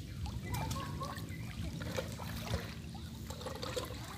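Floodwater trickling and lapping, over a steady low rumble.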